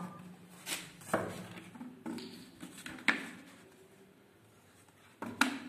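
A few scattered clicks and knocks from a plastic bottle of turpentine being handled and its cap unscrewed, ready to pour into a pot of enamel paint.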